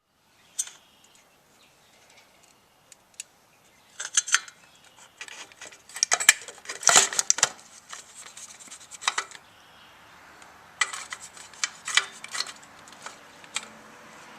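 Hand tools and small metal parts clinking and clicking irregularly while motorcycle handlebar hardware is worked on, with the busiest clatter in the middle and a second run of clicks later.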